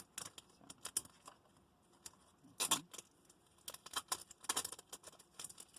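Pokémon trading cards and packs being handled: a scatter of short rustles and light clicks, with one louder rustle a little under three seconds in.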